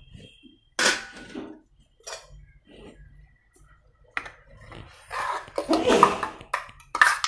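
Steel spoon clinking and scraping against metal cooking vessels as ground coconut paste is scooped into a pan of curry. There are a few scattered clicks, a stretch of scraping about five seconds in, and quick, sharper clinks near the end.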